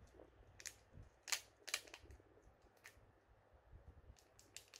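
Faint, scattered short crinkles and clicks of a small clear plastic packet being handled and worked open in the fingers.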